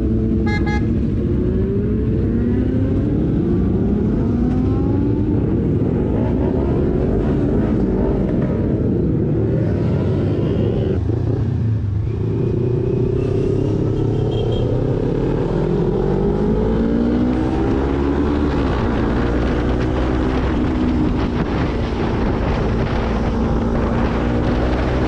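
Motorcycle engine accelerating through the gears, its pitch climbing and dropping back again and again with the shifts, with a short high beep about half a second in.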